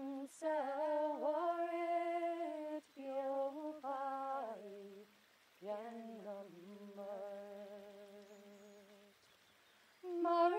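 A woman humming a slow, unaccompanied traditional Irish air in sean-nós style: long held notes with ornamented dips and turns, in three phrases with short breaths between them, the last one fading away before a new phrase begins near the end.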